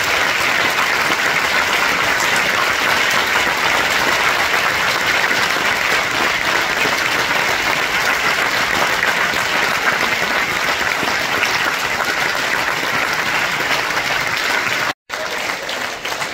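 A large audience applauding, dense and steady. It breaks off for an instant near the end and goes on a little quieter.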